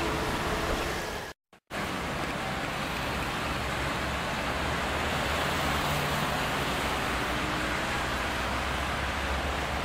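Steady street traffic noise from passing cars, which cuts out completely for a moment about a second and a half in where the recording breaks off and restarts.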